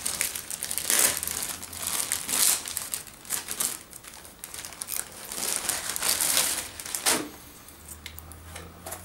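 Plastic bag packaging around a laptop crinkling and rustling as it is pulled open and slid off, in irregular bursts that die down near the end.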